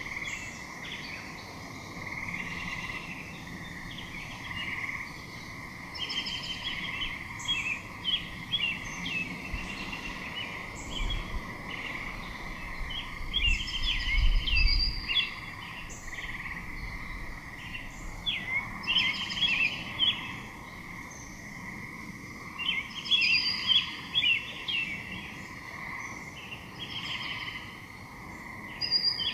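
Small birds chirping and trilling repeatedly over a steady high-pitched drone, with a brief low rumble about halfway through.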